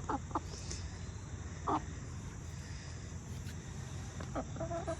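Chickens calling: a few short squawks in the first two seconds, then a longer call near the end, over a steady low rumble.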